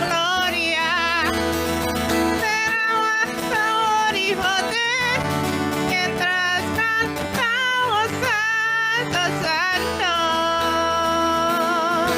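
Worship song: a woman singing long, wavering notes over acoustic guitar accompaniment.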